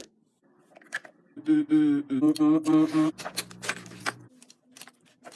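A person humming a few short held notes, then one longer, lower note, with a few light clicks.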